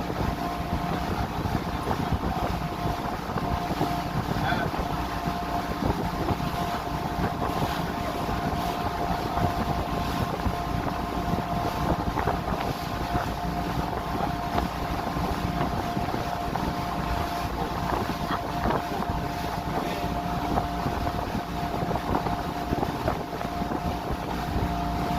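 Motorboat engine running steadily under way, a constant drone with wind noise on the microphone.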